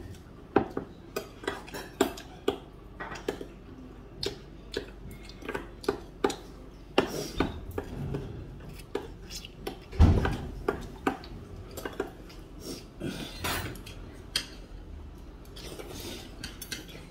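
Eating utensils clicking and tapping against dishes and bowls in irregular short strokes during a meal, with one heavier knock about ten seconds in.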